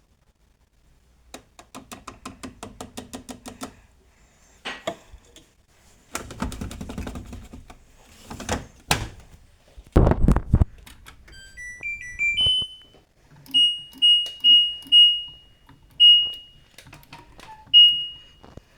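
LG washing machine's control panel: a short rising power-on tune of beeps, then single beeps from button presses, the first few about half a second apart and later ones spaced out, each with a soft knock. Before that, a run of rapid clicks, some handling noise, and the loudest sound, a heavy thud.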